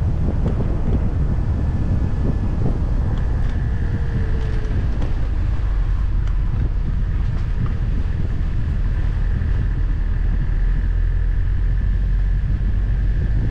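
Car driving at steady speed: low road rumble with wind noise on the microphone. A faint steady high whine joins about a second and a half in.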